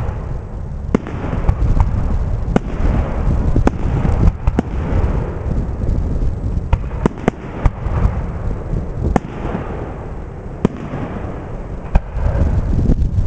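Aerial fireworks shells bursting one after another: about a dozen sharp bangs, some followed by crackling, over a steady low rumble.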